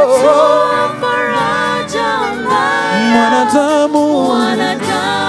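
A worship team singing a slow Swahili gospel worship song, with several voices holding long sung notes over the band.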